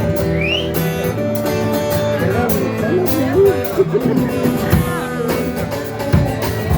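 Instrumental intro of a rock song: guitars playing over bass and drums, with a wavering lead melody line.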